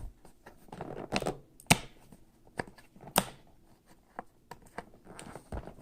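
Cardboard packaging being handled: scattered taps, clicks and light scraping as the inner packaging is worked out of a box, with a few sharper knocks.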